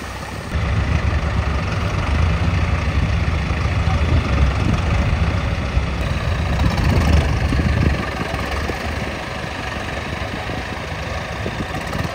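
Diesel engine of a heavy farm machine running steadily, a little louder from about half a second in and easing off somewhat at about eight seconds.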